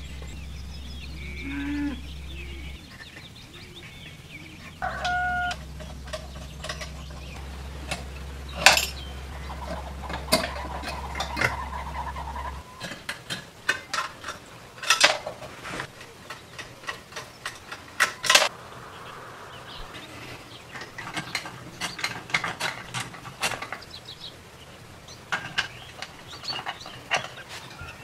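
Small electric motor of a geared mechanism humming steadily. It breaks off for about two seconds near the start, and it stops for good a little before halfway. After that come irregular clicks and clinks of metal brackets and parts being handled.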